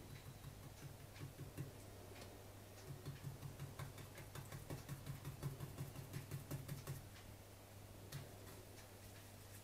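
Small paintbrush working thin wood stain into a wooden rifle stock to brush out runs: quick, rhythmic soft ticking strokes of about five a second, in two spells, over a steady low hum.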